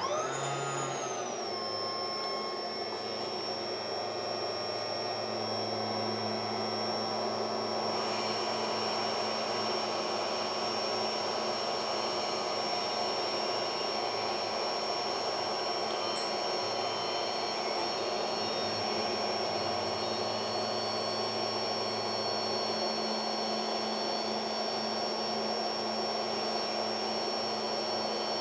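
Hot-air rework station switching on and blowing. Its fan whine rises and settles within about two seconds, then the air runs steadily. The hot air is reflowing the solder of a replacement backlight fuse so it sits flat on both pads.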